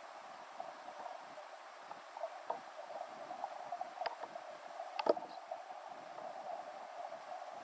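Underwater ambience of shallow sea water recorded by a submerged camera: a steady muffled hiss with a few sharp clicks, the loudest about five seconds in.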